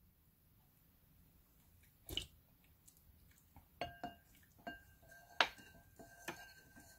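A wooden spoon knocking lightly against a ceramic bowl several times while stirring salted red-bean water, each knock leaving a short ring from the bowl. Before the knocks, about two seconds in, a brief slurp as the liquid is tasted.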